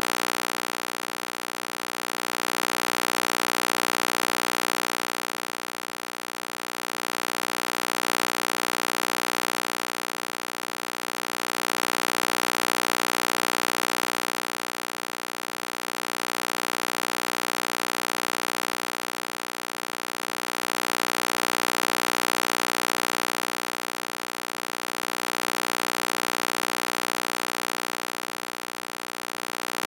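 Synthesized EMDR stimulation sound: a steady electronic drone of many fixed tones with a hiss on top, swelling and fading about every four and a half seconds.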